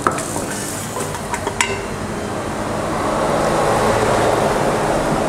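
Food frying in oil in a stainless steel pot on a gas stove. A wooden spoon knocks against the pot near the start and again about a second and a half in, and the sizzle swells from about halfway through.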